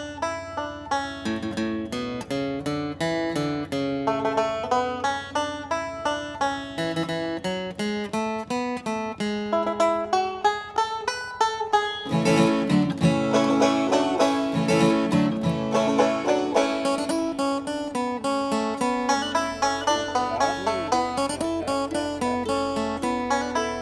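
Background music: acoustic guitar and banjo picking in a bluegrass style, the arrangement growing fuller about halfway through.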